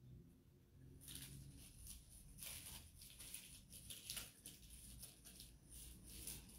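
Faint, irregular rustling of a small plastic bag rubbed over glued tissue paper on a tin can, smoothing the paper down.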